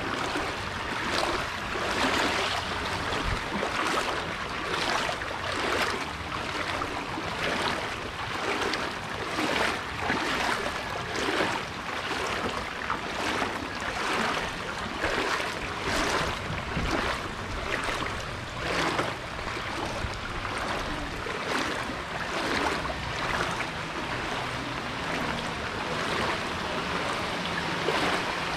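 Footsteps wading through shallow floodwater, each step a splash, about one a second.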